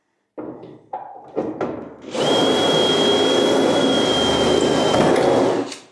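Electric drill running steadily for about three and a half seconds, with a steady high motor whine, drilling into the sheet-metal rear panel. A few short knocks from handling come first.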